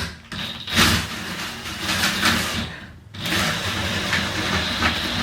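Electric drill running under load, boring starter holes into a wooden door, in two long spells with a brief stop about three seconds in.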